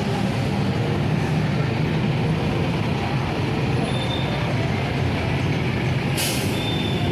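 Steady motor-vehicle and street-traffic noise, an engine running throughout, with a brief sharp hiss about six seconds in.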